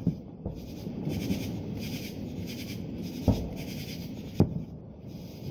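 Aerial fireworks shells bursting: a sharp bang right at the start, a fainter one half a second later, then two more loud bangs a little past three and four seconds in, over steady background noise.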